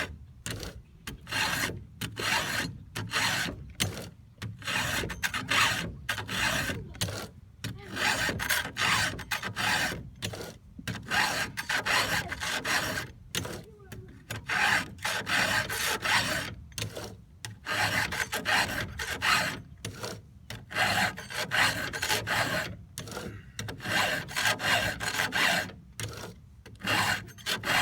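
Chainsaw chain being hand-sharpened with a file: repeated rasping strokes across the cutters, one after another in a steady rhythm, taking down the tooth and clearing the gullet.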